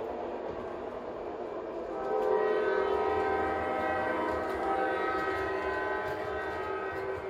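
G-scale MTH BNSF diesel locomotive's sound unit running its engine rumble, then blowing a multi-tone horn chord that starts about two seconds in and holds for several seconds.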